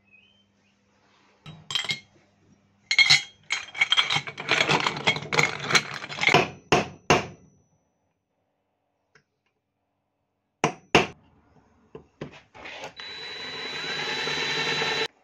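Metal knocking and clinking as a hand tool is worked inside a pocket bike's wheel hub, with two sharp knocks partway through. Near the end a cordless drill runs for about two seconds with a steady whine, getting a little louder, and stops abruptly.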